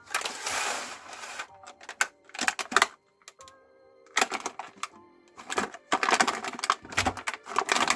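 Meat grinder crunching and crackling through something brittle in irregular bursts, with background music underneath.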